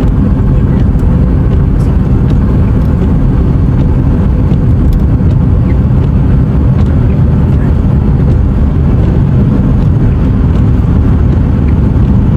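Car driving in strong wind: a steady, heavy rumble of road and wind noise, with scattered faint ticks.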